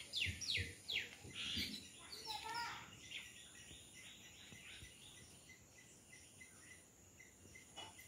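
Garden birds calling: a few quick falling whistled notes, then a warbling call, then a steady series of short chirps repeated about three times a second. A few soft low thumps in the first second or two.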